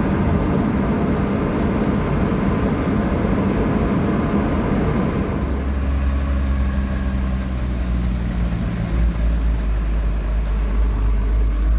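Old Dodge pickup truck driving: engine and road noise. About halfway through, the rough road rumble eases and a steady low engine drone takes over.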